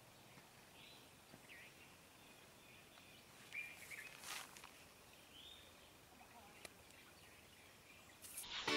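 Quiet background hiss with a few faint, short chirps and a brief rustle about three and a half seconds in. Music starts suddenly near the end.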